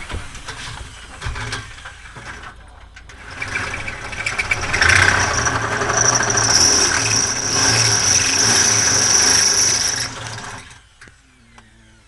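A handheld power tool runs for about seven seconds with a steady high whine, starting about three and a half seconds in and cutting off near the ten-second mark. Before it there are a few scattered knocks and clicks.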